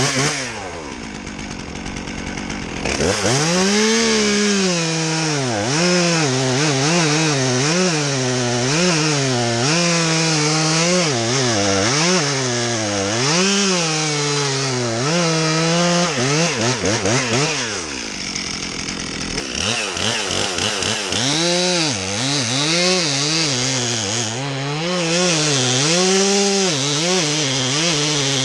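Stihl two-stroke chainsaw cutting into an ash trunk. It runs low at first, revs up about three seconds in and cuts with its pitch repeatedly rising and falling under load, drops back to a lower note for a few seconds in the middle, then revs and cuts again.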